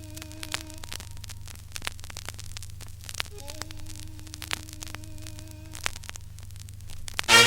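Needle running in the run-in groove of a 7-inch 45 RPM vinyl single: surface crackle and scattered pops over a steady low hum, with a faint wavering tone twice. The music starts right at the end.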